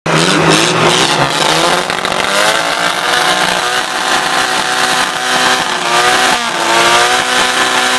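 Dune buggy engine held at high revs during a tyre-smoking burnout. The pitch climbs over the first few seconds, dips briefly about six seconds in, then holds steady.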